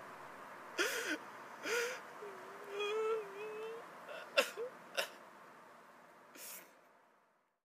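A man sobbing: sharp gasping breaths and short whimpering cries, with one drawn-out moaning cry in the middle. The sound fades out near the end.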